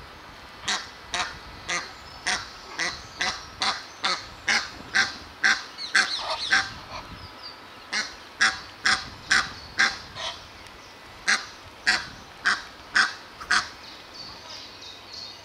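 A waterbird calling over and over: short, sharp honking calls about two a second, in three runs with brief pauses between.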